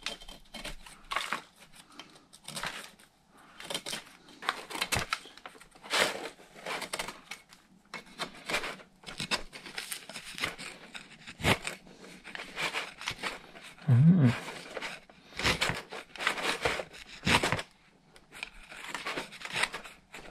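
Steel tool scraping hard carbon buildup out of a port of a Honda N22 2.2 diesel intake manifold, in irregular scratching strokes. The port is choked with soot from recirculated exhaust gas.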